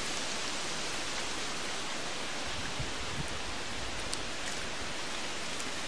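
Wind blowing through the tree canopy, leaves rustling in a steady hiss, with a brief low rumble about halfway through.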